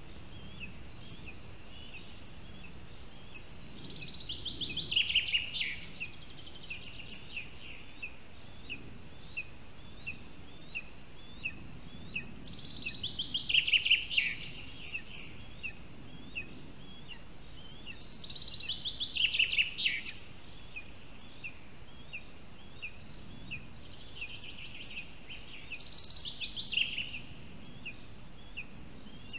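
Forest birdsong: a songbird sings a short phrase four times, about every seven seconds, each building to a loud fast trill that falls in pitch. Under it runs a steady series of short high peeps, about two a second, fitting a lesser spotted eaglet begging for food.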